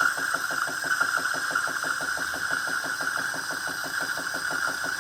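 Saeco Xelsis super-automatic espresso machine running mid-drink: a steady, rapid mechanical pulsing of about ten beats a second from its pump, with a hiss over it.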